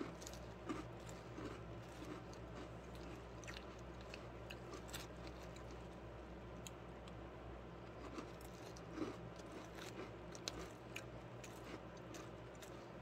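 Faint chewing of crunchy Cap'n Crunch cereal in milk, with scattered crisp crunches and small clicks as a plastic spoon works in a plastic cup.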